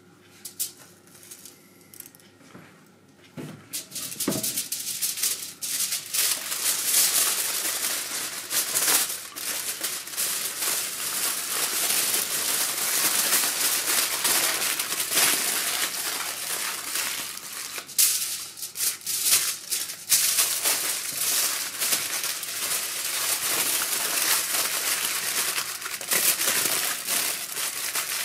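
Aluminium foil crinkling and crumpling as hands fold it and press it tightly around a food parcel, a continuous crackly rustle starting about four seconds in after a few soft knocks.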